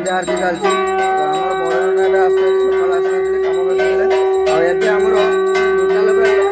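Puja bells ringing in a steady rhythm during an aarti, over a long unbroken held tone that cuts off near the end.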